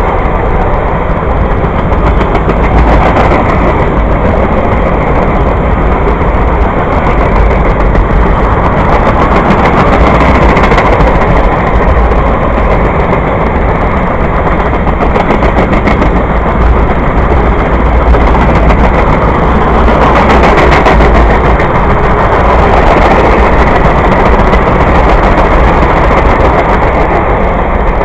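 Freight train of tank cars rolling past close by: a loud, steady rumble of steel wheels on rail with rapid clattering clicks.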